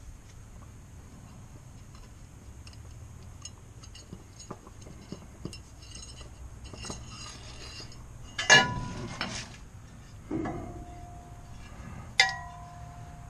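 Steel parts and washers being handled: light metallic clinks and ticks, then three louder clanks of metal on metal about two seconds apart, each leaving a short ringing tone.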